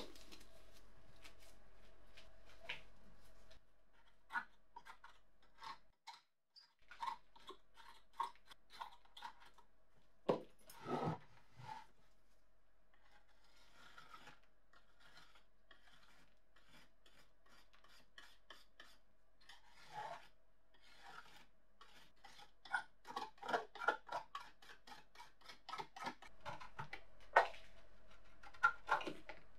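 Small scalpel blade scraping flaking paint and rust off a rusty metal kitchen scale body: a run of short, irregular scrapes and clicks, sparse at times and coming thick and fast near the end.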